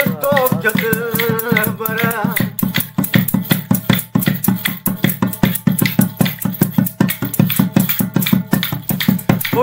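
A man singing a folk song for the first couple of seconds to a fast, even clacking of hand-held wooden clappers (chapri). After that the clappers carry on alone with a low beat underneath.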